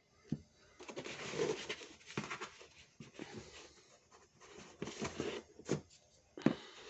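Hardcover books and torn cardboard packaging being handled: irregular rustling and scraping, with a few sharp taps as a book is set down or picked up.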